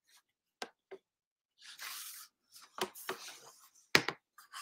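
Handling noises from a sketchbook and marker: scattered light clicks and knocks with two short rustles of paper, and a sharper knock about four seconds in as the book is shifted.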